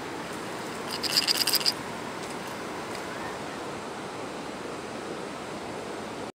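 Steady outdoor wind and rustle on the microphone, with a brief cluster of small, ringing metallic clinks about a second in as the jointed hard-plastic pike swimbait is handled, its treble hooks and split rings knocking together.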